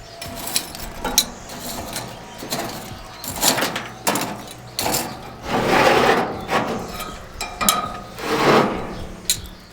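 Kitchen utensil scraping and knocking against a cast iron potjie as food is spooned and layered in: irregular scrapes and swishes broken by several sharp clicks.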